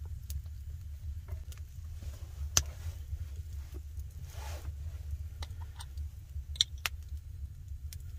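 Small handling sounds of raw chicken being pushed onto wooden skewers over a wooden cutting board: soft rustling and sliding with scattered sharp clicks, two of them standing out. A steady low rumble lies underneath.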